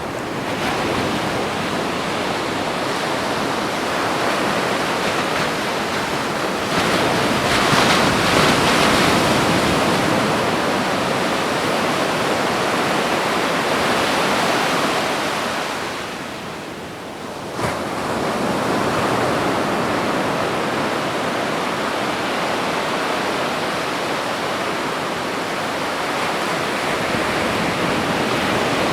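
Ocean waves breaking and washing on a beach in a continuous surf noise that swells and ebbs, with a lull about two-thirds of the way through before the next wave builds.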